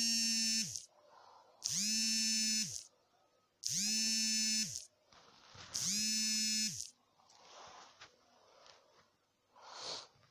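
A small electric motor buzzing in four bursts of about a second each, about two seconds apart, each spinning up quickly and winding down at its end; fainter rustling follows, with a short louder rustle near the end.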